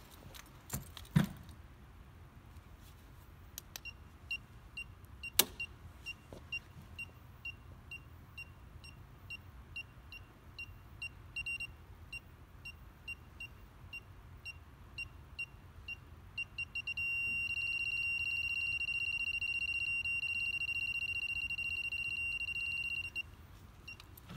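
Southwire 41210S circuit breaker finder receiver beeping in short, even pips about twice a second as it is swept along the breakers. About 17 seconds in it changes to a steady high tone that lasts some six seconds, the finder's signal that it has found the breaker on the traced circuit. A sharp click about a second in is the breaker being switched back on.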